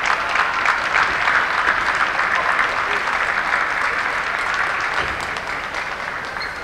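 Applause from a large crowd, a dense patter of many hands clapping, easing off a little near the end.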